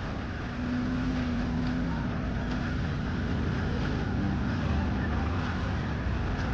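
Drift cars' engines running on a dirt track, a steady low engine noise with one steady engine note held for about two seconds.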